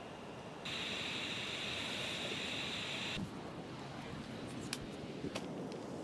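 A steady hiss that starts abruptly, holds for about two and a half seconds and cuts off, followed by a few light clicks.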